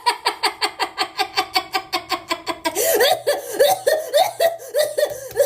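A woman laughing in a long unbroken run of high-pitched 'ha-ha' pulses, about eight a second at first. In the second half the laugh slows, and each pulse falls in pitch.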